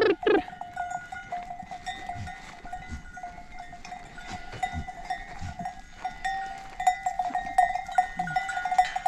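Livestock bells clinking and ringing steadily as the animals drink, with a few soft low thuds; a bleat-like animal call trails off in the first half-second.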